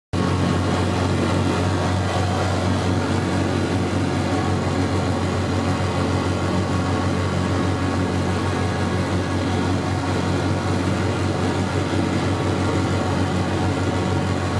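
A car driving along a paved road, its engine and tyre noise making a steady low hum.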